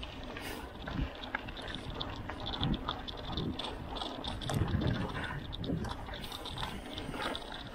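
Bicycle ridden along a dirt forest trail: tyres crunching and the bike rattling over small bumps, with wind rumbling on the microphone.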